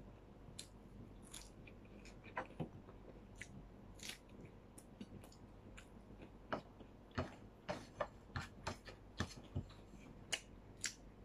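Faint chewing and wet mouth clicks of a person eating by hand, with a quick run of sharper clicks in the second half.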